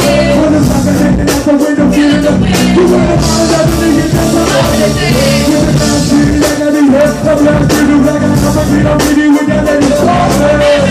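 Loud live music: a singer's voice holding long, wavering notes over a bass-heavy beat.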